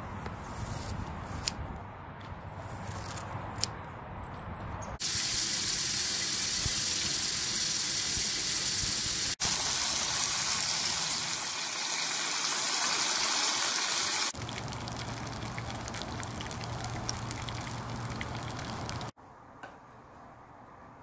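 Split mackerel frying in a pan: a steady, loud sizzle, cut off and resumed twice, that stops abruptly near the end.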